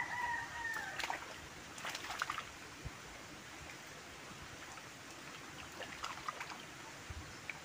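Faint outdoor ambience by a fishpond: a steady soft hiss with scattered light ticks and small water sounds, twice in little clusters, and a short whistled call that falls away about a second in.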